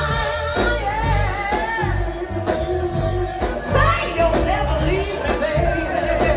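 Live blues band playing: electric guitar, bass and drums under a woman singing, with blues harmonica.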